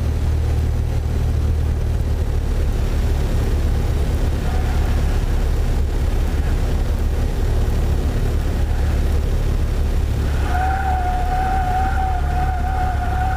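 Steady drone of a Cessna 172P's four-cylinder engine in the cockpit on short final. About ten seconds in, the stall warning horn starts sounding a steady, slightly wavering tone and keeps going, the sign of the plane slowing near stall speed in the landing flare.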